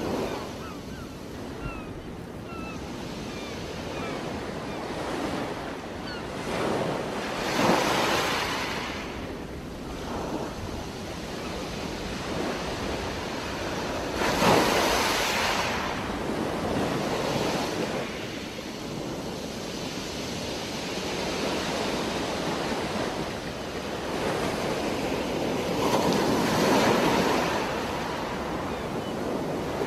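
Underwater water noise picked up by a diver's camera: a steady rushing hiss that swells loudly three times, about seven to eleven seconds apart.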